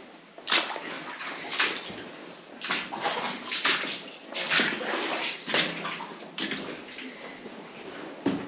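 Boots wading through shallow water in a mine tunnel, splashing and sloshing with each step, about one step a second.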